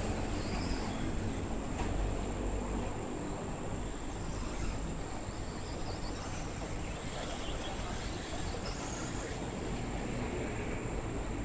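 Steady rumble and hiss of road traffic on the elevated road overhead, with a thin high tone throughout and a few short, faint higher whines.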